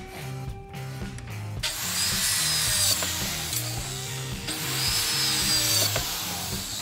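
A power tool working wood runs twice, each time for a couple of seconds with a high whine, over background music with a steady bass line.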